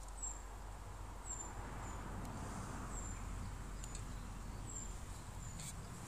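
Outdoor ambience: short, high, falling chirps repeating irregularly about once a second over a low steady rumble, with a few faint clicks.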